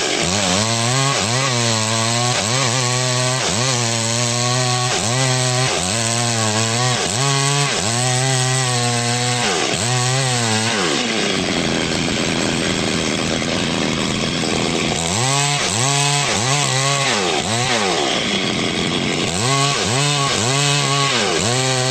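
Chainsaw engine running, its pitch rising and falling over and over, a little faster than once a second. About halfway through it settles into a steadier, rougher stretch for a few seconds, then the rise and fall returns.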